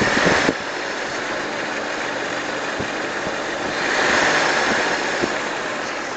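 2004 Pontiac Sunfire's Ecotec 2.2L four-cylinder engine running while a little hot, making the steady hissing noise the owner hears at that temperature. It drops sharply about half a second in and swells again around four seconds in, with a few faint knocks.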